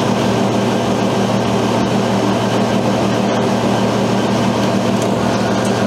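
Soft-serve ice cream machine running as it dispenses ice cream into a cone with its chocolate ripple topping: a steady mechanical hum of several low tones over a hiss.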